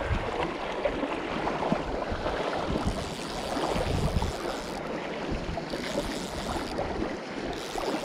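Shallow river current rushing and lapping, an even wash of water noise.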